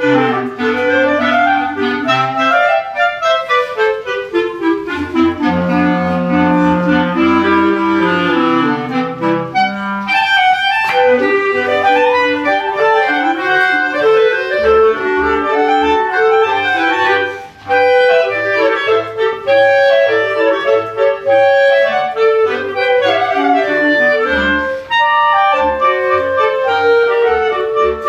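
Clarinet quartet of three clarinets and a bass clarinet playing together: moving melodic lines over short, repeated low notes from the bass clarinet. A brief break in the playing comes about two-thirds of the way through.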